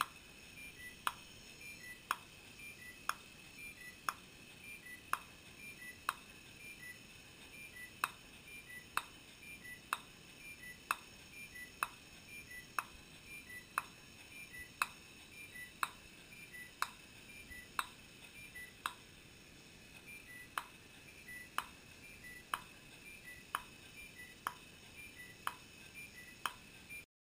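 Faint, regular clicks about once a second, with short high beeps between them, cutting off suddenly near the end.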